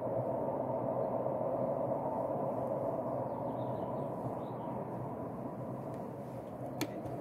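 Distant Rhaetian Railway train running over the stone Landwasser Viaduct: a steady rumble that slowly fades as the train moves away. A single sharp click sounds near the end.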